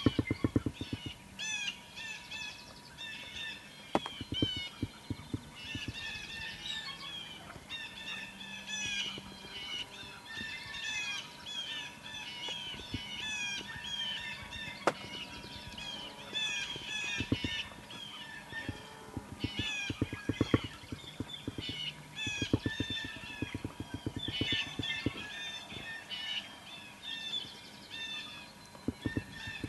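Many songbirds singing at once, with quick repeated chirps and whistles throughout. A few times a low, rapid pulsing sound comes in for about a second.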